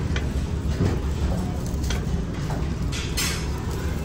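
Steady low rumble of the ferry running underway, with a few light clicks and a clatter of metal serving tongs picking food from a buffet tray.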